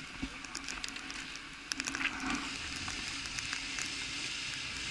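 Snowmobile engine idling with a low, steady hum under a steady hiss, with scattered small clicks and knocks.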